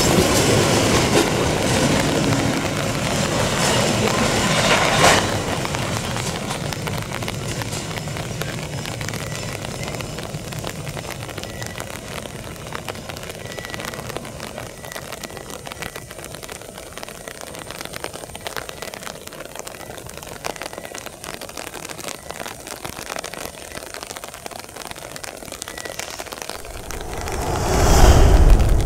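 Loaded coal hopper wagons rolling past, wheels clicking over rail joints, with a sharp clack about five seconds in. The sound then fades to a steady hiss as the end of the train moves away. Near the end a loud low rumble swells up.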